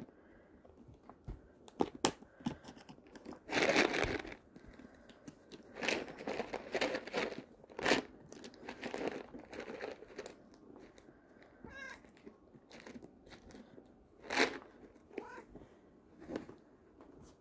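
Cat treats rattling and rustling in a plastic Temptations treat container as a hand digs out a handful, in several noisy bursts. Between them a cat gives a couple of soft, short trills.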